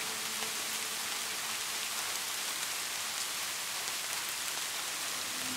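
Steady rain, an even hiss with faint drop ticks scattered through it.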